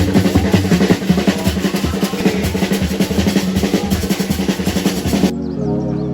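Music with fast, busy drumming and drum rolls; about five seconds in it cuts suddenly to a calmer track with long held tones.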